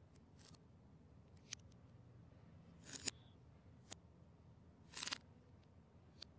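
Plastic Lego bricks clicking as they are handled and pressed together, with louder snaps about three seconds and five seconds in and faint ticks between.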